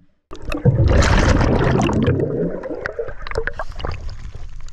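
Sea water rushing and splashing loudly around a diver breaking the surface, starting suddenly. It eases after about two seconds to waves lapping at the surface, with small splashes and clicks.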